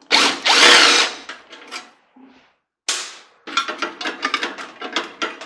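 Power drill running on screws in a microwave oven's metal housing: a loud burst in the first second, then a second run from about three seconds in with a rapid rattle over the motor's steady tone.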